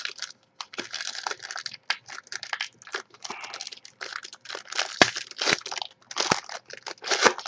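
Foil wrapper of a Panini trading-card pack crinkling and rustling in quick, irregular bursts as the pack is opened, with a couple of sharper snaps about five and six seconds in.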